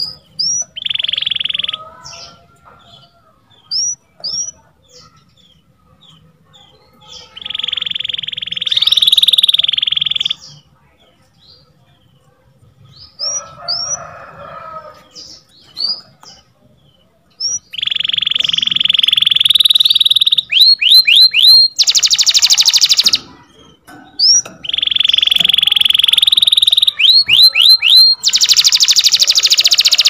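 Yellow domestic canary singing in phrases: short rising chirps, rolling trills of a second or two, and in the second half longer, louder rolls broken by harsh, raspy rattles.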